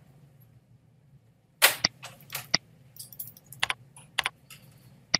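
A handful of sharp, unevenly spaced clicks from computer keyboard keys and mouse buttons, starting about one and a half seconds in after a near-silent stretch.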